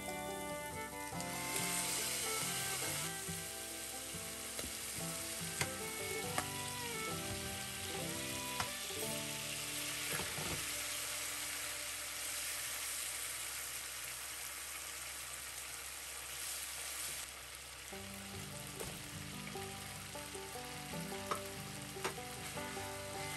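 Canned tuna and a soy-based sauce sizzling in a nonstick frying pan while being stirred with chopsticks, with a few sharp taps on the pan. Light background music plays over it.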